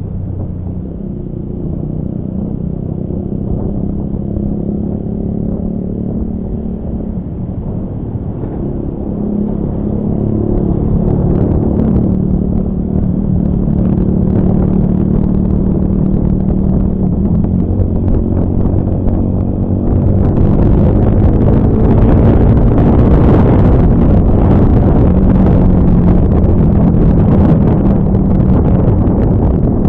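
Honda Scoopy scooter's single-cylinder engine running steadily while riding, under wind and road noise. The sound gets louder about ten seconds in and again about twenty seconds in, when the wind noise picks up.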